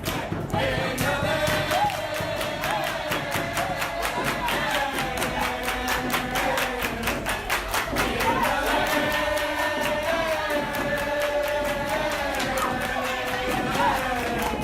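A group of voices singing together in sustained lines over a fast, steady beat.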